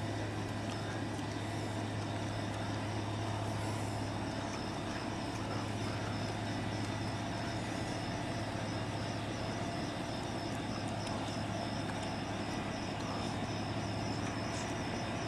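Steady low mechanical hum under a constant hiss, with no change in pitch or level.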